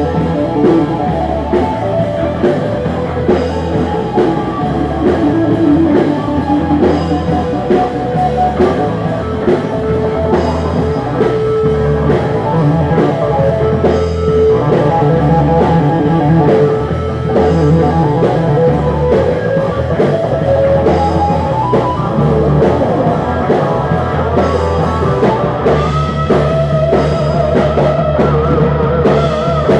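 Live rock band playing an instrumental passage: distorted lead electric guitar over bass guitar and a drum kit, with no singing. Near the end the guitar holds and bends wavering high notes.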